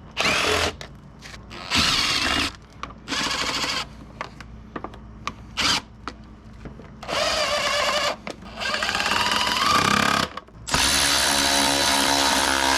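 Cordless Milwaukee power tool with a hex bit spinning in several short bursts, backing out bolts; the longest burst comes near the end and winds down in pitch as it stops.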